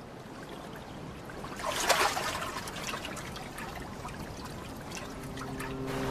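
A metal canister breaks the sea surface with a splash about two seconds in, followed by water fizzing and trickling around it as it bobs in the foam. A low steady hum comes in near the end.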